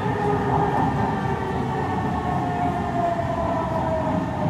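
Kawasaki C151 MRT train heard from inside the car running underground: a steady rumble of wheels and track with a motor whine that falls steadily in pitch, as the train slows.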